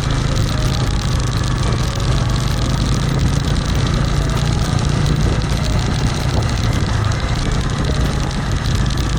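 Vehicle engine running steadily with road noise while driving.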